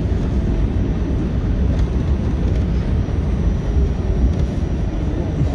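Steady low rumble of an R46 subway car running along the track, heard from inside the car.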